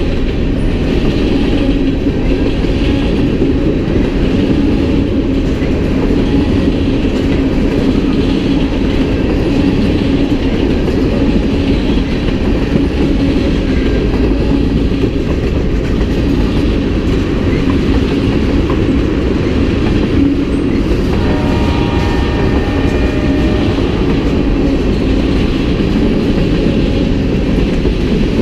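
Freight train cars, tank cars and covered hoppers, rolling steadily past on the rails: a continuous loud rumble and rattle of wheels on track.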